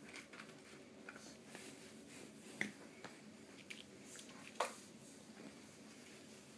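Five-week-old Groenendael puppies at play, heard as faint scattered clicks and taps, with two sharper clicks about two and a half and four and a half seconds in.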